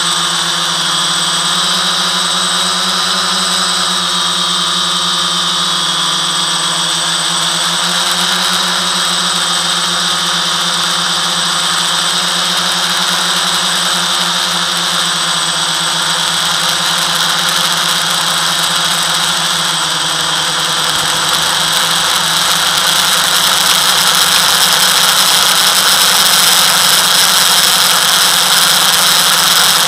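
FPV quadcopter's brushless motors and propellers whining steadily in flight, the pitch shifting a little with throttle and the sound getting louder about two-thirds of the way through.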